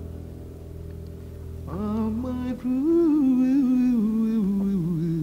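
Music: a sustained held chord for about the first second and a half, then a solo voice comes in singing a slow melody with vibrato.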